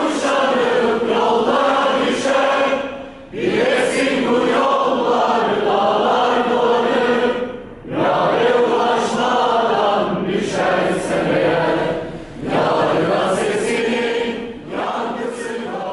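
A group of people singing together, in sung phrases a few seconds long with short breaks between them.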